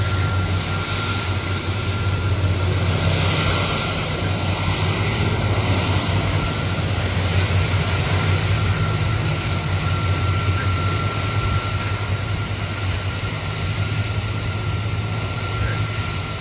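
Four turbofan engines of a Boeing 747-400F freighter running at taxi power as it rolls away, a steady low rumble and hiss with a thin high whine held throughout. The hiss grows brighter about three seconds in as the jet turns its exhausts toward the listener.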